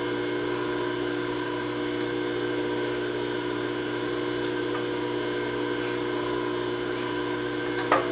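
Steady electric motor hum made of several fixed tones, with a single sharp knock near the end.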